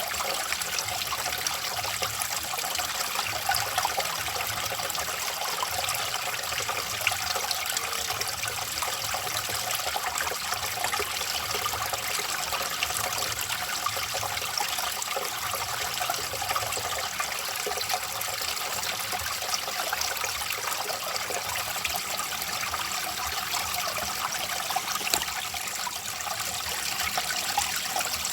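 A small stream of water flowing and trickling steadily, without a break.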